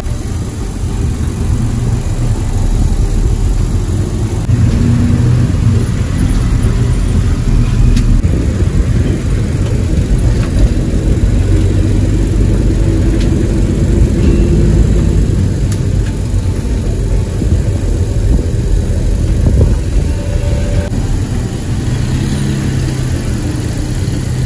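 Low engine and road rumble inside a moving city bus, the engine note shifting up and down as it drives.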